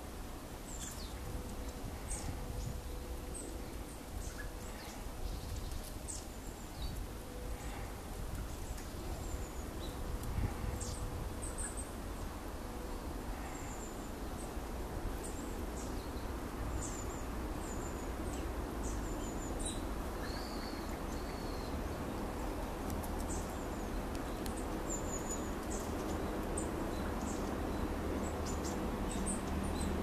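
A flock of small birds calling in trees and undergrowth: many short, high, thin calls scattered throughout, over a steady low background rumble.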